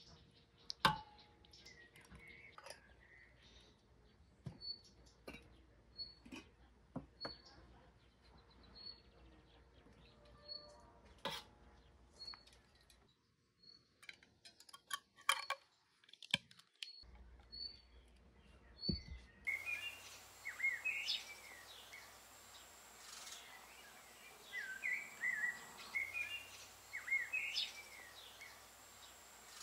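Birds calling: a high short chirp repeated a little faster than once a second, among scattered clicks and knocks. About two-thirds of the way in it changes to a livelier mix of sweeping birdsong over a steady hiss.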